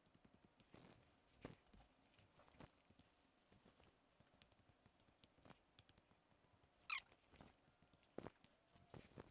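Faint, scattered scrapes of wet Coghlan's waterproof matches being struck one after another on the matchbox's worn, waterlogged striking surface, with a brief squeak about seven seconds in.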